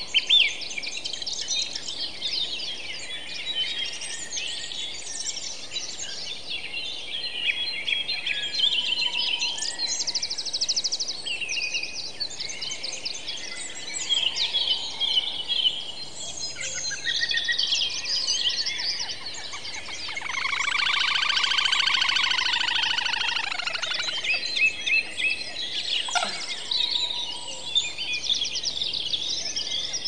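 Many wild birds singing and chirping at once, overlapping trills and short calls. About two-thirds of the way through, a longer, louder call slides down in pitch.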